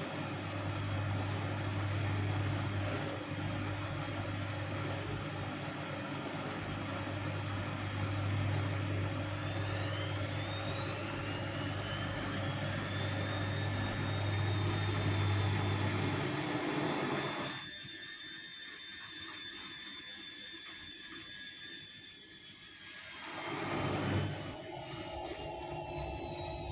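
Vestel CM8710 washing machine spinning its drum up on the final spin: the motor's whine rises in pitch from about ten seconds in, then holds steady at speed. A low hum under it drops away about two thirds of the way through.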